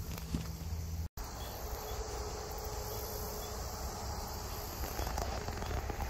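Steady chorus of crickets and other insects over a low rumble; the sound drops out completely for an instant about a second in.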